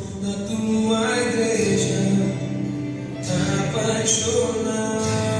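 Recorded worship song playing its opening: sustained chords, before the lyrics begin.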